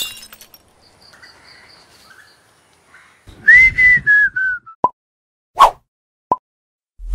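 A whistle lasting about a second, its pitch falling slightly over bursts of hiss, followed by three short sharp clicks.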